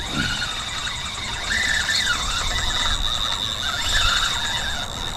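Fishing reel drag singing as a hooked stingray runs and strips line off the spool: a steady high whine with a rougher, wavering buzz under it.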